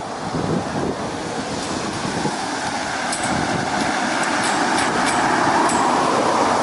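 Road traffic: cars and a small flatbed truck approaching along the road, their tyre and engine noise growing steadily louder as they near. A few faint high ticks sound in the middle.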